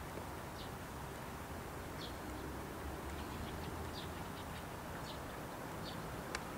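Short, high bird chirps about once a second over a faint, steady low rumble from a distant freight train. One sharp click comes near the end.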